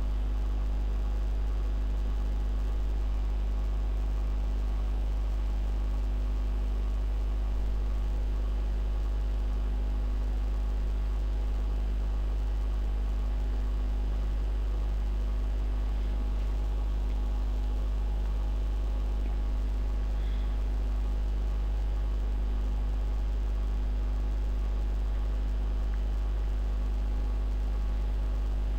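Steady low electrical mains hum, a deep buzz with a row of overtones above it and a faint hiss behind.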